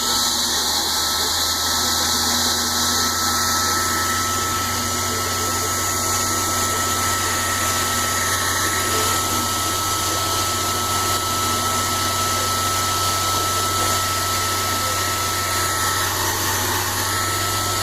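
Blow dryer running steadily on a wet dog's coat: an even rush of air with a low hum and a thin, steady whine.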